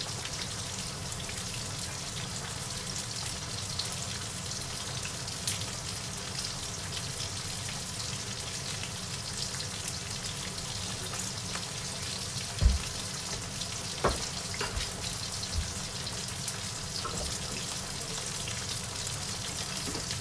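Bacon and mushroom pieces frying in a wok: a steady crackling sizzle as the bacon cooks. A few short dull knocks come about two-thirds of the way through.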